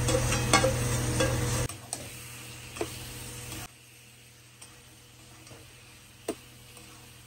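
Raw chicken pieces sizzling in hot oil and spice masala in a metal kadai, stirred with a metal spatula that scrapes and clicks against the pan. Under the first couple of seconds there is a steady low hum with frequent clicks. The sound drops suddenly twice, near 2 s and 4 s, and after that it is quieter, with an occasional sharp click of spatula on pan.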